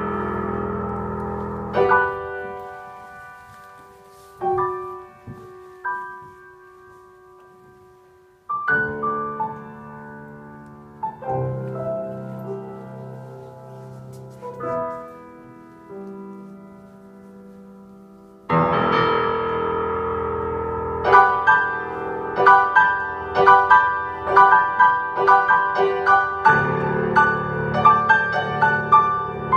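Solo grand piano. Sparse chords are struck and left to ring away, then about two-thirds of the way through a louder, fuller passage begins with a steady pulse of chords.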